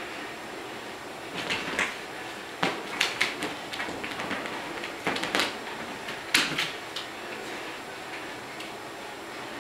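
Pet scrambling on a fabric couch and blanket: scattered short rustles and knocks in clusters every second or two, thinning out after about seven seconds.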